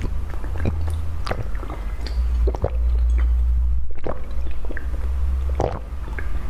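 Close-miked ASMR drinking: sipping and swallowing from a glass cup, with wet clicks of the lips and throat about once a second over a low rumble.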